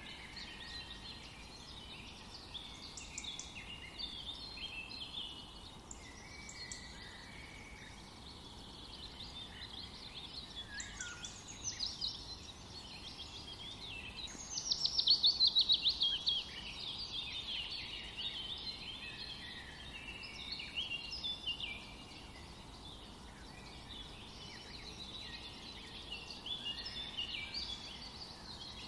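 Several birds chirping and singing with short, varied calls throughout. About halfway through comes a loud, fast trill that falls in pitch.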